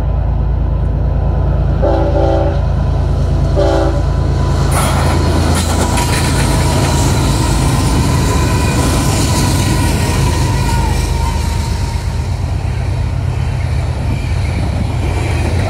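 Freight train going by: a steady low rumble from the locomotive, two short blasts of the train horn about two and three and a half seconds in, then loud wheel-on-rail noise as the cars roll past.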